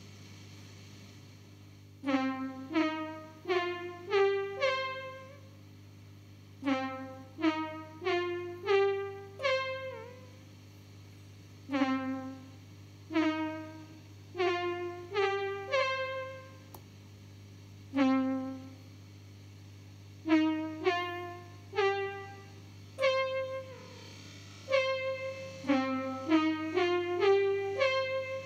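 Casio CZ-230S synthesizer with a brass-like tone playing short phrases of rising notes with pauses between, each note tailing off, fed through a Vermona DEG 500 digital delay. A steady low hum runs underneath.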